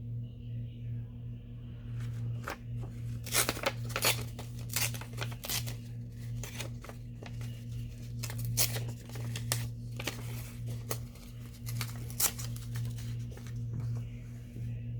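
Paper being handled and worked by hand: an irregular run of sharp crackles and clicks that starts about two seconds in, over a steady low hum.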